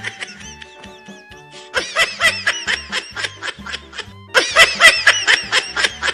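Comic laughing sound effect in two bouts of quick, high-pitched 'ha-ha-ha' laughs, over upbeat jazzy background music.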